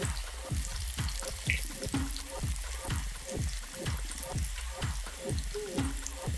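Breaded chicken pieces deep-frying in hot oil, sizzling and crackling steadily. Background music with a steady beat of about four beats a second runs under it.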